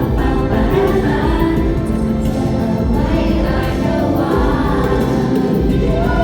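A Thai pop love song performed live over loud amplified music, with singing, as heard from the audience in the hall.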